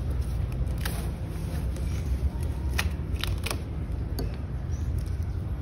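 Screwdriver and fingers scraping and prying damp, rotten wood core out of an opened fiberglass boat rudder: scattered scratches and sharp clicks, a handful in all, over a steady low rumble. The wood has rotted from water seeping in.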